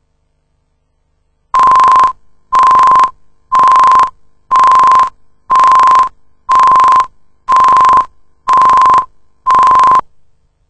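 Countdown-leader beep tone: one steady pure beep about once a second, nine in all, each a little over half a second long. It is the leader's cue tone counting down to a cut point.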